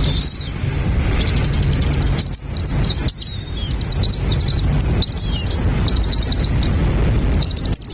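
Small birds chirping in quick high notes, over a loud steady low rumble.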